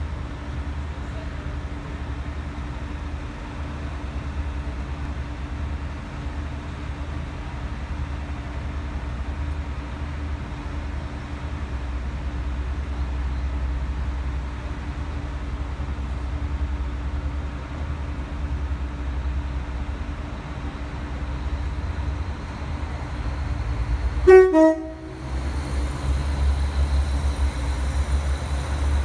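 NI Railways Class 3000 diesel multiple unit running at the platform with a steady low engine drone. About 24 seconds in it gives one short horn toot, then its engines run louder with a thin high whine as it starts to pull away.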